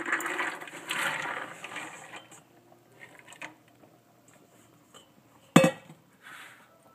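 Chopped vegetables tipped and scraped by hand out of a stainless-steel mixing bowl into a cooking pot, a rustling clatter for about two seconds. About five and a half seconds in, the empty metal bowl is set down on the stovetop with a single ringing clink.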